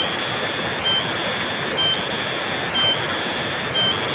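Steady rushing of a fast-flowing, muddy river, with a short high-pitched chirp repeating about once a second.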